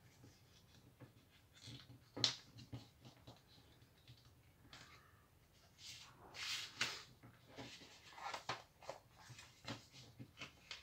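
A sheet of A4 printer paper being folded and creased by hand: faint rustling and crinkling, with a sharp crackle about two seconds in and louder rustles in the second half.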